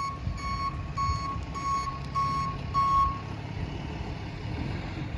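Backup alarm of a reversing vehicle beeping about twice a second, stopping a little after three seconds in, over the low rumble of an idling engine.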